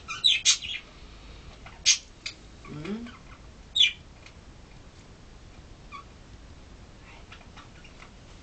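A few short, high-pitched animal squeaks in the first few seconds, with one brief low rising call among them, then quiet background.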